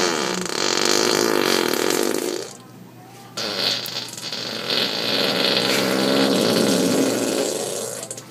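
A sleeping man snoring loudly: two long, buzzing snores, the first lasting about two and a half seconds and the second about four and a half, with a quieter breath between them.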